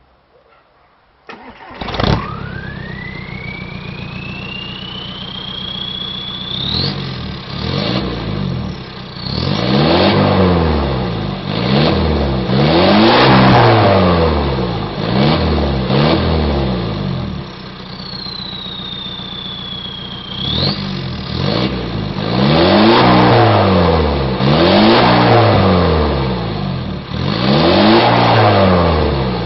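VW Golf IV 1.9 TDI four-cylinder diesel with a straight-through 2.25-inch exhaust starting up about two seconds in, then idling and being revved in repeated short blips. A high whistle from the turbo climbs in pitch over the first few seconds after the start, and a similar whistle comes back during the pause at idle between the two sets of revs.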